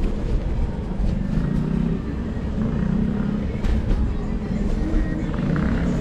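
A steady low rumble from riding an electric kick scooter: wind on the microphone and the wheels rolling on the road.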